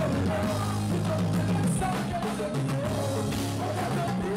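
Live band music: a singer's melody over bass and drum kit with a steady beat.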